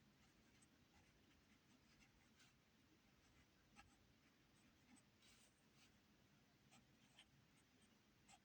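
Near silence with faint, scattered scratches and taps of handwriting, someone writing out an equation.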